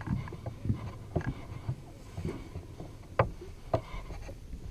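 Footsteps on a metal canopy walkway and its tower steps: irregular dull thumps and light metallic clicks, with two sharper clanks a little past three seconds and about three and a half seconds in.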